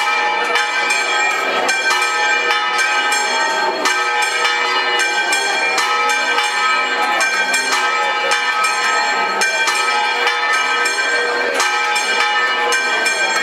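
Church bells pealing, struck rapidly and repeatedly so that many ringing tones overlap.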